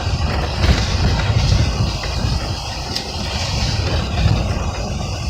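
A vehicle driving along a driveway covered in slushy snow: a steady low rumble of engine and tyres.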